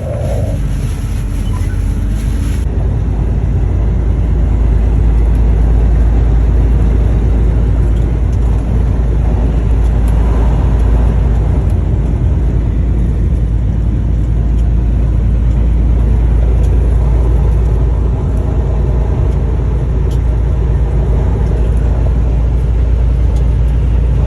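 Truck driving on the road: a steady, loud low rumble of engine and road noise.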